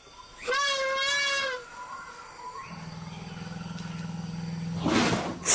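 Borneo pygmy elephants calling. A high, slightly wavering squeal comes about half a second in and lasts about a second. A steady low rumble starts about three seconds in, and a short harsh blast follows near the end.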